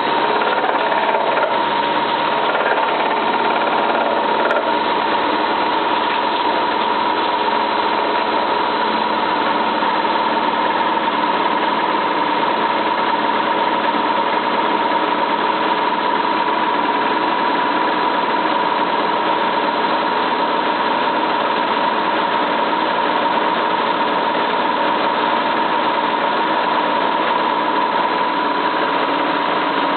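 Cylinda 12002 washing machine in its final spin, running loud and steady with a constant whine. The noise sounds as if something were stuck inside the drum, though nothing was found in the inspection pocket.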